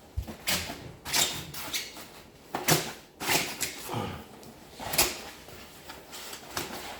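Irregular knocks, clunks and rustles as a 3000 W step-up/step-down voltage converter and its packaging are handled, with about nine separate sharp sounds at uneven intervals.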